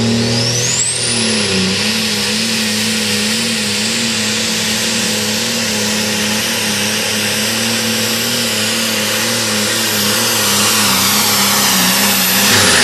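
Turbocharged diesel engine of a John Deere pulling tractor running at full throttle under load. Its turbo whine rises quickly over the first second or two to a high, steady pitch over the engine's steady drone, then falls away at the very end.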